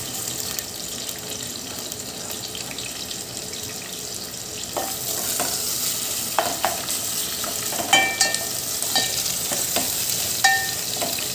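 Sliced onions sizzling in hot oil in an aluminium pot, stirred with a wooden spoon. From about halfway, the spoon knocks against the pot several times, some knocks with a short metallic ring.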